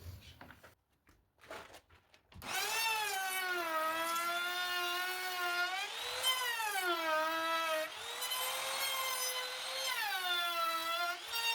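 A few light knocks and handling sounds, then about two and a half seconds in an electric power tool starts cutting wood. Its motor whine runs loud and steady, its pitch sagging and recovering several times as the load on the blade changes.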